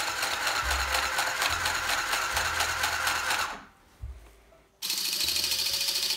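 Battery-powered mini sewing machine stitching Velcro onto canvas, the needle clattering rapidly. It runs for about three and a half seconds, stops, and starts again for a shorter run near the end.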